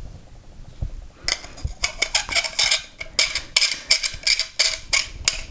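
Metal pommel of a lightsaber hilt being screwed back on, its threads squeaking. The squeaks come as a quick run of short chirps, about three a second, starting a little over a second in.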